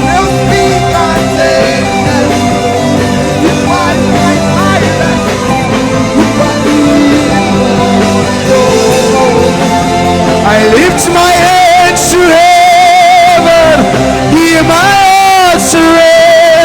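Live gospel worship band playing. In the second half a voice holds long, wavering notes over it.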